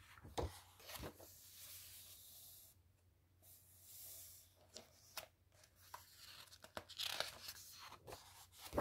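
Colouring-book pages being turned and pressed flat by hand: faint paper rustling and swishes with a few sharp light ticks.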